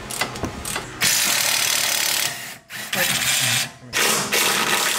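Handheld power tool running in three runs of about a second each, starting about a second in, spinning a nut off the sway bar end link. A few light metal clicks come before it.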